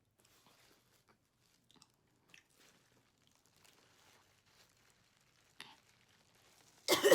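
Soft, close chewing and wet mouth sounds of someone eating a seafood boil, faint and irregular. Near the end a loud throat-clear or cough breaks in.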